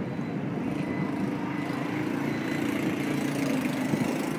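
A small engine running steadily amid street noise.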